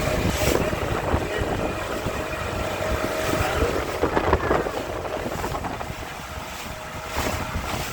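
Wind rumbling and buffeting on the microphone of a moving boat, over the steady hum of the boat's motor, with a few short gusts.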